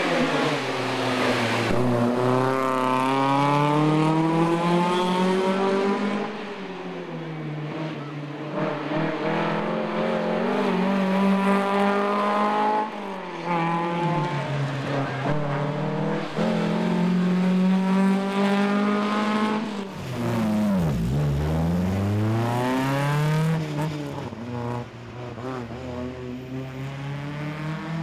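Datsun 1600 rally car's four-cylinder engine revving hard under full acceleration. Its pitch climbs through each gear and falls back at every shift. About three quarters of the way through the revs drop low before climbing again.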